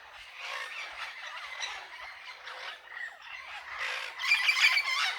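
A flock of parrots squawking and chattering in the trees, a dense mass of overlapping harsh calls that swells to its loudest about four seconds in.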